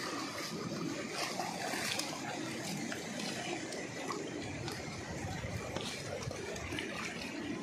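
Fast mountain river rushing over boulders and rapids, a steady noise of flowing water, with splashing from wading legs near the start.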